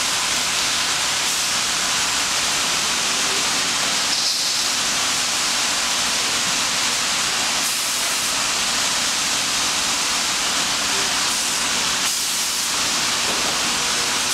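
Vacuum tube lifter's blower running: a loud, steady rush of air with a faint low hum underneath.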